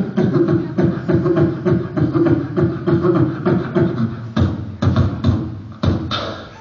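Human beatboxing into a microphone: a fast run of percussive mouth clicks and kicks over a steady held vocal note, thinning to a few separate hits near the end.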